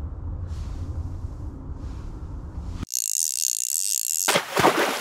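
Steady low room rumble, then an abrupt cut about three seconds in to a bright, high shimmering intro sound effect, followed near the end by a loud splash-like rush that fades away.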